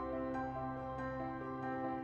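Soft instrumental background music, its held notes changing a few times a second.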